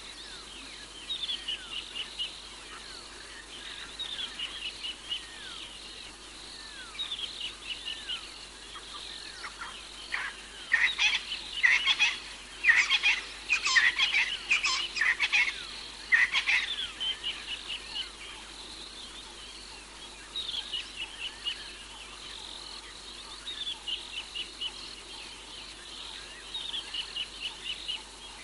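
Night animal calls at a waterhole: short rapid series of high notes repeat every second or two, with a louder, denser cluster of calls in the middle lasting several seconds.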